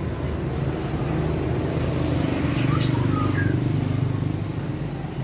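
A motor vehicle engine running steadily, a low hum that swells a little in the middle, with a few short high bird chirps about three seconds in.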